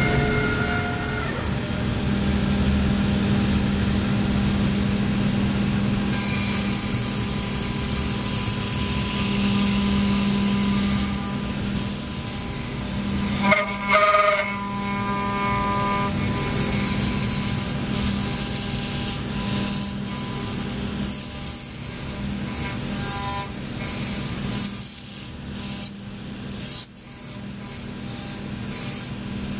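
Five-axis CNC milling machine cutting a pattern: a steady spindle hum with several steady tones over a continuous cutting hiss, the pitch and level shifting as the cut changes, and uneven near the end.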